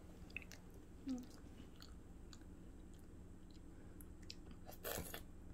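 Faint chewing of a breaded mozzarella hot dog, with small scattered mouth clicks, a brief vocal sound about a second in and a short, louder crunchy rustle near the end.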